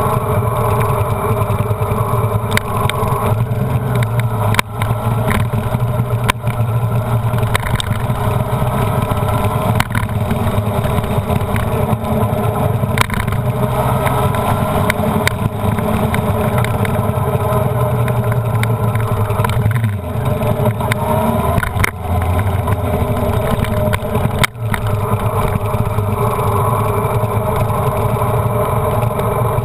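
Honda CBR929RR's inline-four engine running steadily at low revs while the bike rolls at low speed. The pitch rises and falls a little, and a few short sharp clicks come through.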